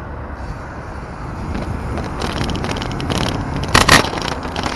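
Steady rumble of wind and rolling noise from a bicycle riding along a road at night. Near the end a couple of loud knocks and rubs come as the handlebar-mounted camera is jostled.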